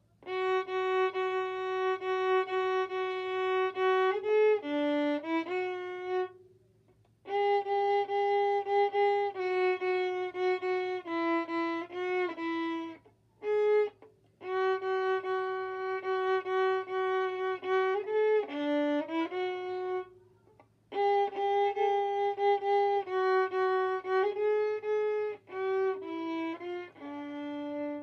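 Solo violin playing a cheerful tune in several phrases with short breaks between them; the last notes near the end are fumbled, ending on a low held note.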